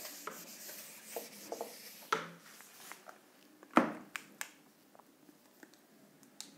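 Whiteboard duster rubbing across a whiteboard as it is wiped, then a few separate clicks and knocks, the loudest about four seconds in.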